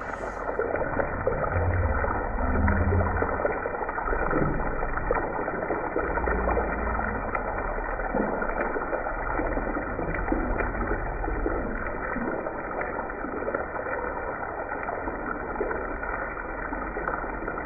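Batter-coated crab legs deep-frying in hot oil: steady sizzling and bubbling with scattered small pops.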